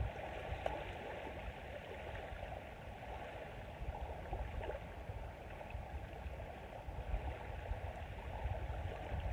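Small waves washing and lapping on a sandy shore: a steady wash of water with no distinct events, mixed with light wind on the microphone.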